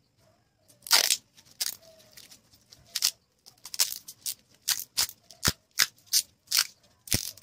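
Adhesive tape being pulled off its roll and wound around a small transformer's winding: a series of short, sharp rasps, the loudest about a second in, coming quicker in the second half.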